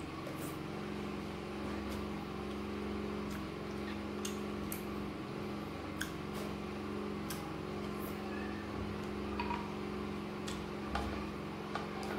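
Scattered light clicks and taps of a spoon against a glass bowl of soaked gari while eating, over a steady low hum.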